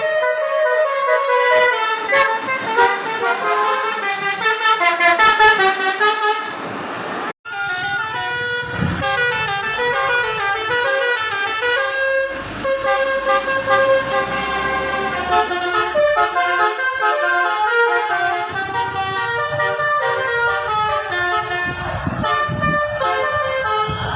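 Indonesian 'telolet' bus horn, a set of tuned air horns sounding several notes at once and playing quick stepped tunes over and over. It cuts out abruptly for an instant about seven seconds in, then carries on.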